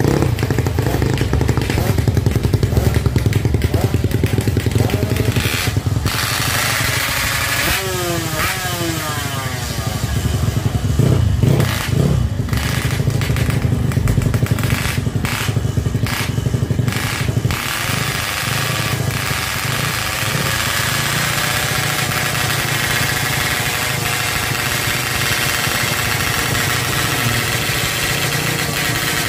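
Drag motorcycle's engine running at the start line, with a low pulsing beat at first. About eight seconds in it is revved in rising sweeps, then it runs steadily at a higher, fuller note to the end.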